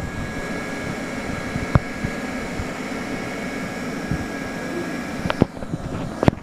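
Hand-held hot-air plastic welding gun running, its blower giving a steady rush of air with a faint high whine, while it welds vinyl rod into a sheet vinyl seam. The air noise drops about five seconds in, and a few sharp clicks come near the end.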